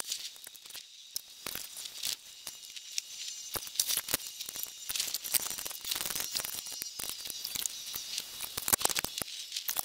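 Greenlee ratcheting pipe bender being worked by its hand lever: dense, irregular clicking and crackling from the ratchet and shoe as the steel pipe is drawn round the bending die.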